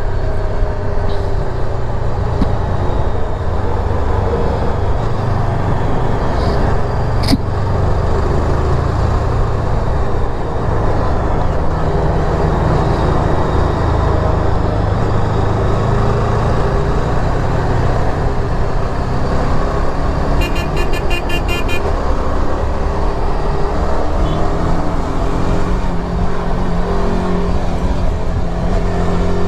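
Yezdi Adventure's single-cylinder engine running on the move, heard from the rider's position under steady wind and road noise, its pitch shifting as the speed changes. A brief high beeping sounds about two-thirds of the way through.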